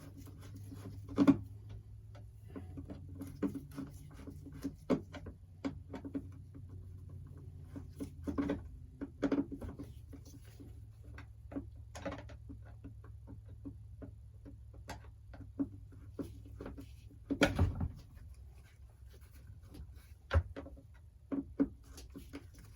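Scattered small clicks and ticks of a screwdriver and hands tightening fittings on a backpack leaf blower's replacement carburetor, a few sharper knocks among them, over a faint steady low hum.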